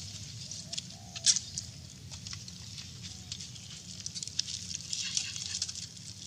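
Crinkling and crackling of plastic packets and bags being handled and torn open, with scattered sharp clicks, the loudest about a second in and a busier run of crackles past the middle.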